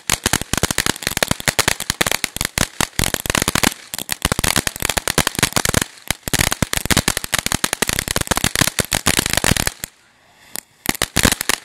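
Ground fountain firework crackling: a dense, rapid run of sharp pops and crackles as it sprays sparks. It drops out briefly twice, stops about ten seconds in, and gives a few last crackles near the end.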